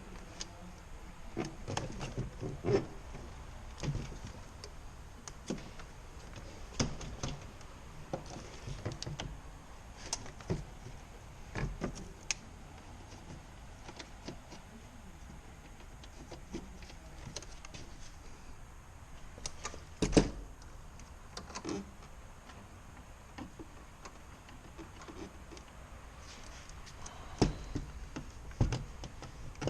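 Irregular clicks, taps and knocks of hands and tools working on a car door and its trim panel, with a sharper knock about 20 seconds in and a quick cluster near the end.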